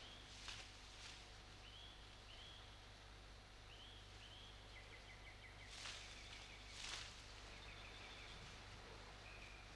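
Faint birdsong: short rising chirps repeated every second or so, with a couple of quick trills of rapid notes, and a few soft swishes in between. A low steady hum lies underneath.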